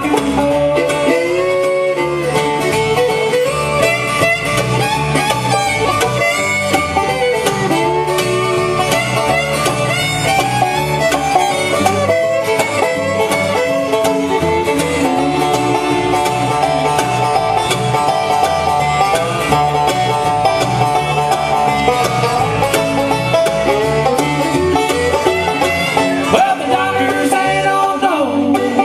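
Live bluegrass band playing an instrumental passage with fiddle, banjo, acoustic guitar, mandolin and electric bass, without singing.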